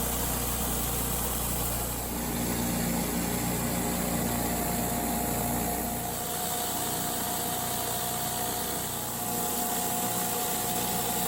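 Pressure washer's engine running steadily, with a steady hiss over it.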